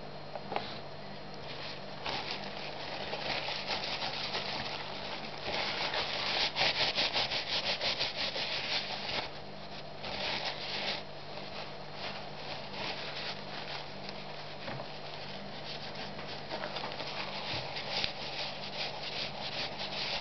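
Paper towel rubbing and rustling against a metal brake caliper piston as it is wiped clean, in quick scratchy strokes that are loudest for a few seconds around the middle.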